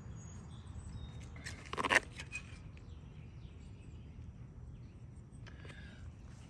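Outdoor ambience with a steady low rumble and a few faint high bird chirps, broken about two seconds in by a brief, louder rustle of something handled close to the microphone.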